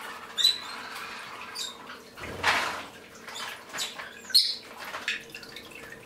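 Pet birds in a bird room giving short, scattered chirps and calls, over a faint steady hum. A brief rush of noise about two and a half seconds in is the loudest sound.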